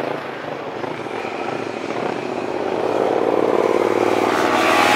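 Several motorcycle engines running and revving as bikes ride slowly along the road. One gets steadily louder and rises in pitch over the last couple of seconds as it comes closer under throttle.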